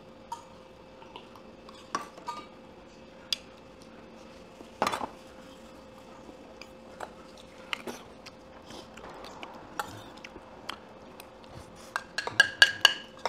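Metal spoon clinking and scraping against small bowls while eating, in scattered light clinks, with one sharper knock about five seconds in and a quick run of louder clinks near the end.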